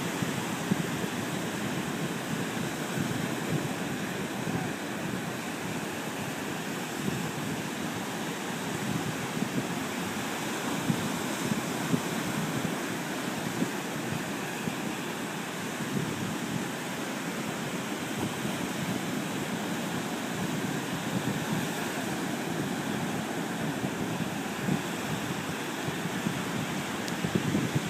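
Steady ocean surf with wind buffeting the microphone.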